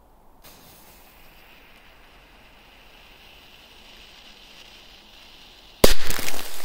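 A faint steady hiss, then one loud firecracker bang near the end, with a short echo trailing off.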